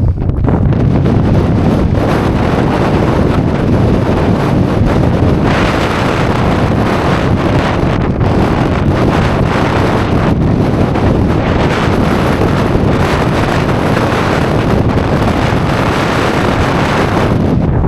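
Strong mountain wind buffeting the microphone: a loud, steady rushing rumble that grows brighter and stronger about five seconds in.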